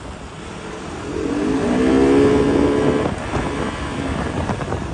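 A motor vehicle's engine swells up and fades away, loudest about two seconds in, over a steady road rumble.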